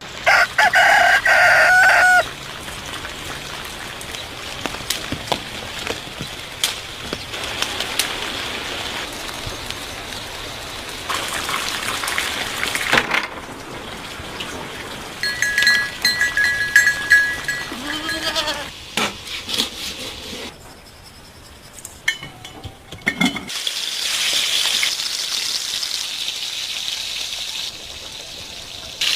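Farm animal calls in a series of short cuts over outdoor background noise. The loudest is a pitched call of about two seconds at the very start.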